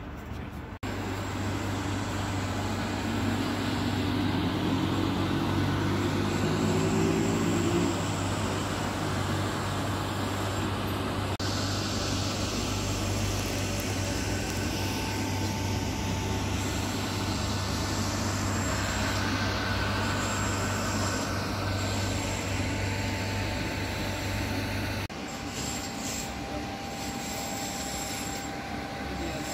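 Vehicle running, heard as a steady low hum with road or rail noise, its engine note rising from about three seconds in to about eight. The sound changes abruptly three times, as if several shots were cut together.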